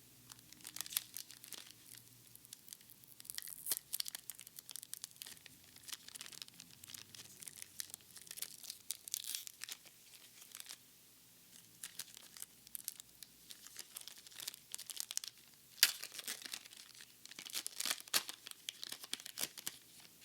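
Foil booster-pack wrappers being torn open and crinkled. It is an irregular run of sharp crackles that comes in clusters, and the loudest comes about three-quarters of the way through.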